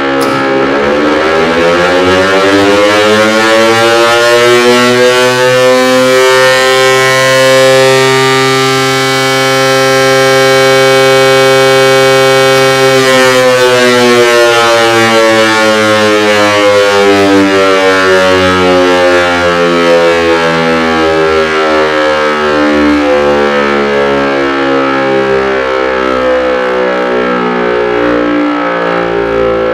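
Low-tone unit of an old type L138 three-port electric siren sounding one blast of the fire-alarm signal. Its pitch rises for about eight seconds, holds a steady tone for about five, then falls slowly as the rotor winds down.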